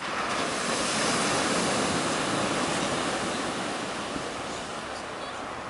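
Black Sea surf breaking and foaming on a pebble beach: a continuous rushing wash, loudest in the first couple of seconds and then slowly easing off.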